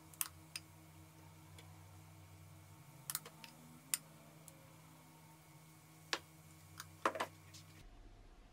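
A spoon clinking against a glass mixing bowl and the pan as pancake batter is spooned out: about eight light, sharp clicks spread out, some in quick pairs, over a faint steady low hum that stops near the end.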